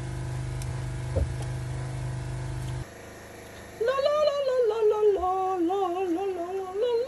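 A steady low mechanical hum with a click about a second in, cutting off suddenly near three seconds in. About a second later, background music with a woman singing starts.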